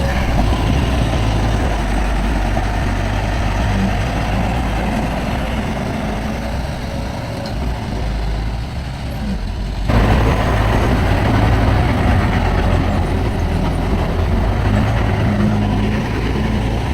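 Heavy diesel earthmoving machinery running steadily with a low, continuous engine rumble. The sound changes abruptly and grows louder about ten seconds in.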